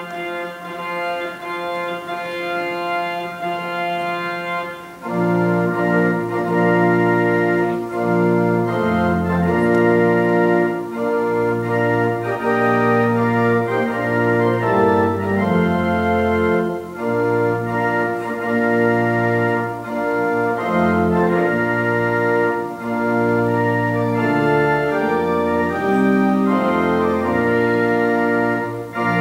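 Church pipe organ playing a processional in slow, held chords. It begins in the upper voices, and a deep bass line comes in about five seconds in, making it louder and fuller.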